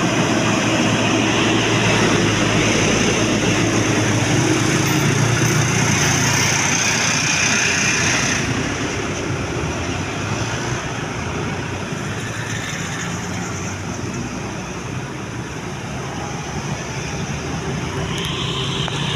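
Road traffic: a large vehicle passing close, its engine drone and tyre noise loudest for the first eight seconds or so, then easing to a steadier, quieter traffic hum.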